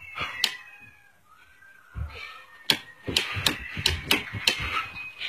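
Circuit breakers in a home electrical panel being flipped by hand: one sharp click, then a quick run of about seven clicks a couple of seconds later.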